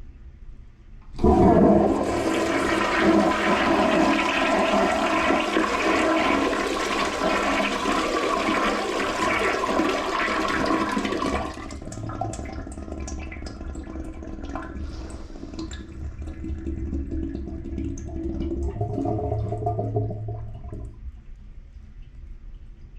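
Toilet flushing: a sudden loud rush of water starts about a second in and runs for about ten seconds, then drops abruptly to a quieter gurgling and trickling that swells briefly near the end and fades.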